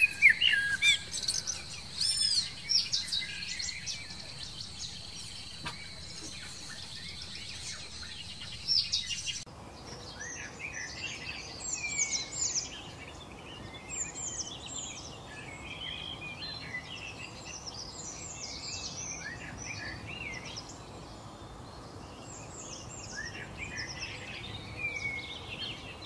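Common blackbird singing, fluty phrases followed by high twittering. About a third of the way in, the sound changes abruptly to small songbirds chirping and twittering in quick, high notes.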